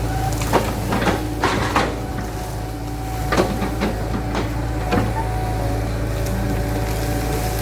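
Heavy road-building machinery with a diesel engine running steadily, and a series of sharp metallic clanks and knocks over the first five seconds.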